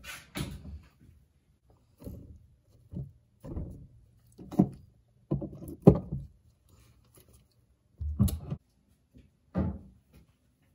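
A series of about ten separate knocks and thunks, spaced irregularly, from objects being handled and set down in a workshop; the loudest comes about six seconds in.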